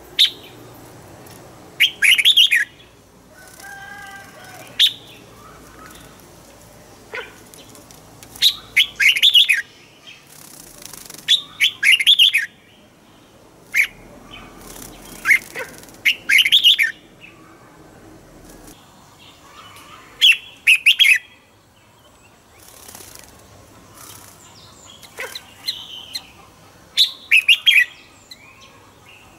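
Red-whiskered bulbul singing short, loud phrases of quick, sweeping whistled notes, repeated every two to three seconds with brief pauses between.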